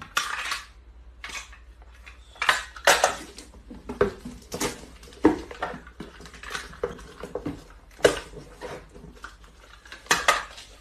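Irregular clattering and clinking of hard objects, like dishes or metal being knocked about, in a dozen or so sharp strikes at uneven intervals.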